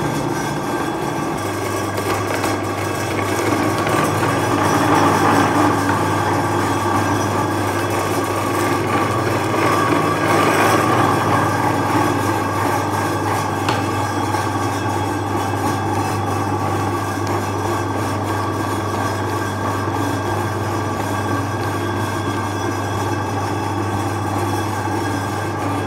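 Electric meat grinder running steadily with a low hum, its auger forcing bars of soap through the grinding plate, with a gritty crumbling noise from the soap crumbs pouring out.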